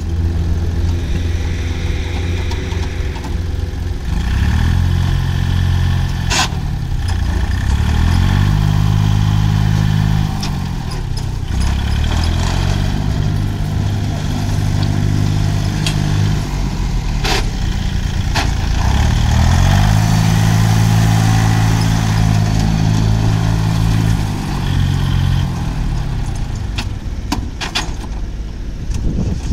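Iseki TU180F compact 4WD tractor's diesel engine running as it is driven, revving up and dropping back about four times. A few sharp clicks stand out, one about six seconds in, one about seventeen seconds in and a couple near the end.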